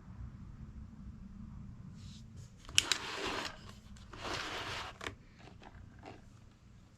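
Handling noise: a sharp click followed by two short scraping, rustling sounds about a second apart, then a few light clicks, over a low rumble.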